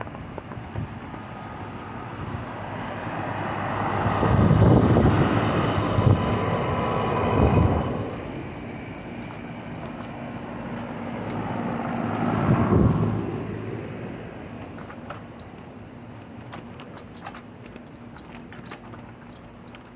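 Two vehicles pass by one after the other, each rising and fading over a few seconds, over a steady mechanical hum.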